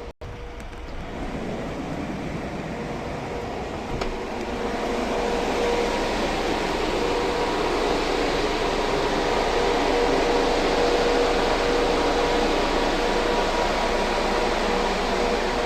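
Truck refrigeration unit on a Fiat Ducato refrigerated van running: a steady fan-and-compressor hum with a steady whine, growing louder about four seconds in and then holding steady.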